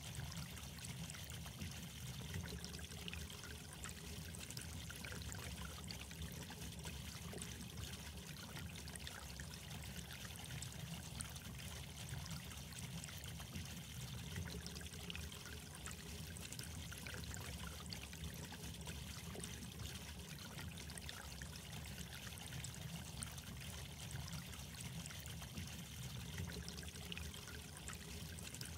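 Steady trickling, running water with fine crackles, unchanging throughout.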